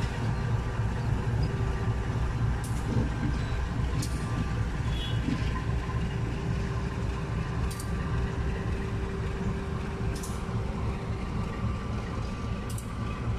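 Diesel-electric locomotive running while shunting in a rail yard: a steady low engine rumble with a steady hum, and a few faint short high ticks.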